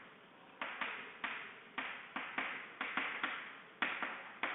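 Chalk writing on a chalkboard: about a dozen quick taps at roughly three a second, each trailing off into a short scratch as the strokes are drawn.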